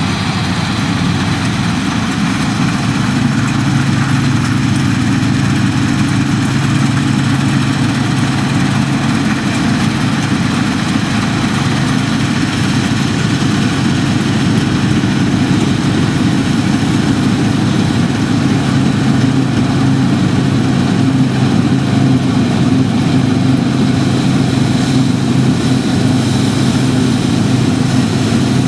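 New Holland TX68 combine harvester running steadily under load, a continuous low engine drone with no change in speed.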